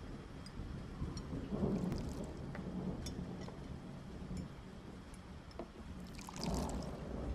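Tea poured from a porcelain teapot into a small cup: a trickling pour rises near the end, with a few faint clicks of cups before it.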